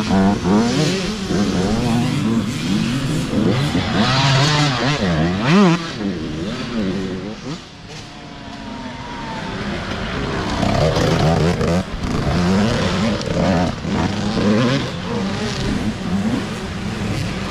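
Dirt bike engine revving up and down with the throttle, its pitch rising and falling again and again; it drops to a lower, quieter note about six to eight seconds in, then builds back up.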